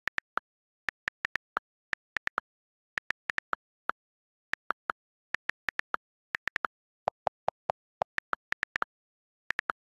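iPhone on-screen keyboard key clicks as a message is typed letter by letter: about forty short, sharp ticks in an uneven typing rhythm, with dead silence between them. About seven seconds in comes a run of lower-pitched clicks, the sound the keyboard gives its space, delete and keyboard-switch keys rather than its letter keys.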